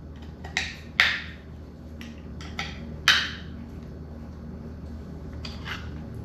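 Hand work on motorcycle front-end parts: a handful of sharp clicks and short scrapes as a small trim piece near the headlight is worked loose, over a steady low hum.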